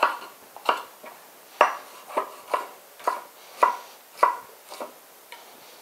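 Chef's knife dicing a red bell pepper on a wooden butcher-block cutting board: about ten separate knife strokes knocking on the board, roughly one or two a second, the last few fainter.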